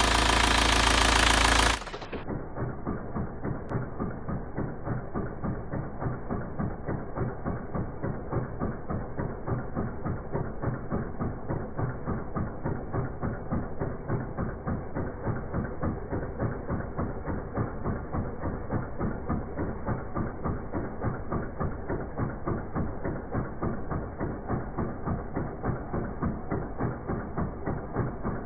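Volkswagen 1.9 TDI (AFN) four-cylinder turbodiesel idling with a steady diesel clatter and an even, rhythmic pulsing, recorded close to the engine to show a vibration. It is louder and brighter for the first two seconds, then settles to a steadier, duller level.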